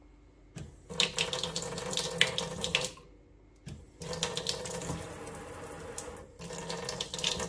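Water from a pull-down kitchen faucet running into a stainless steel sink, in bursts: it starts about half a second in, stops for about a second near the middle, then runs again with a brief break, switching from a single stream to a spray.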